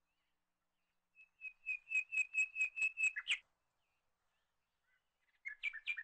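Bird chirping: a run of about nine quick repeated high notes, getting louder and ending in a falling note, then a second burst of chirps near the end.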